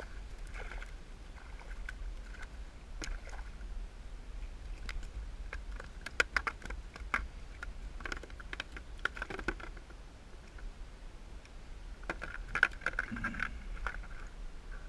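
Light clicks and taps of a fishing rod and reel being handled aboard a plastic sit-on-top kayak, coming in two clusters, about six and about twelve seconds in, over a steady low rumble.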